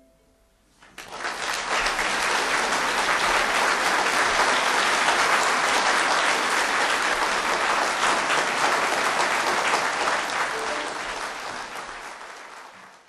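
Audience applauding at the end of a violin piece. The clapping starts about a second in, holds steady, then dies away near the end.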